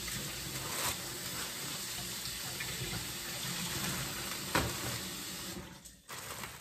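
Kitchen faucet running steadily into the sink, with a plastic bag held under the stream; the tap is shut off abruptly about a second before the end. One sharp click a little past halfway.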